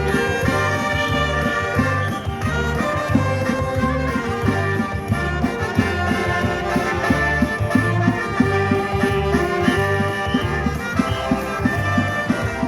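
Live band music: brass melody over a steady beat and a repeating bass line, recorded with poor, distorted sound.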